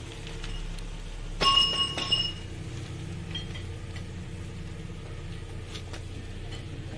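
Steel gearbox parts clinking together as a synchronizer ring is fitted on a transmission main shaft. There is one sharp clink about a second and a half in that rings briefly, then a lighter clink half a second later, over a low steady hum.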